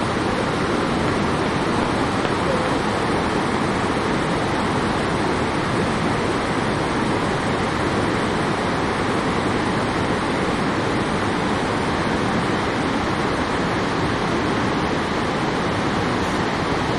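Steady, loud rushing of the Iguaçu Falls: heavy water pouring over the cliffs and crashing into the river, an even noise that never lets up.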